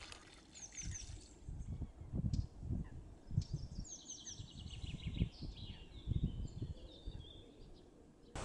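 Small birds chirp and sing in the background in short, high, repeated note series, over an uneven, gusty low rumble of wind on the microphone.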